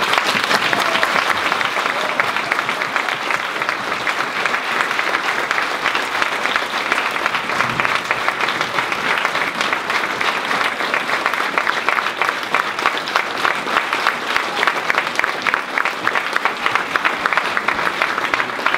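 Audience applauding. The clapping breaks out suddenly and holds steady and dense.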